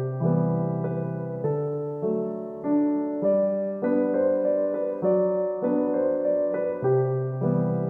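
Background music: a gentle piano melody with evenly paced notes.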